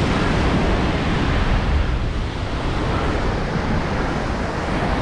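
Ocean surf washing and breaking against sea rocks, with wind rumbling on the microphone.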